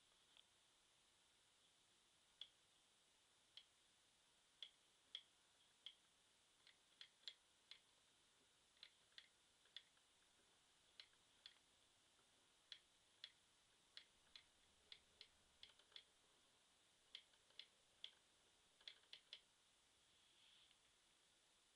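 Near silence with faint, irregular small clicks, one or two a second.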